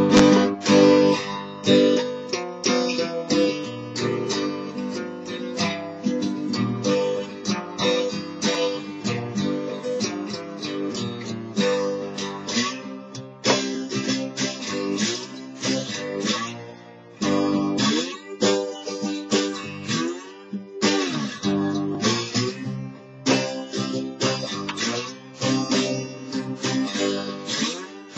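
Acoustic guitar played with a slide, strummed and picked in quick strokes, with notes gliding in pitch here and there in the later part.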